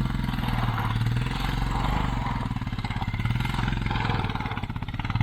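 Single-cylinder motorcycle engine running steadily under load on a steep off-road climb.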